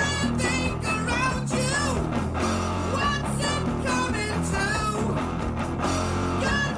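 A rock song with electric guitar, bass and singing.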